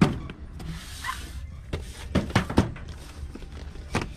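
Cardboard toy boxes being handled on a store shelf: a sharp knock at the start as a box is set down, a brief sliding rustle about a second in, then several lighter knocks and taps as boxes are shifted and picked up.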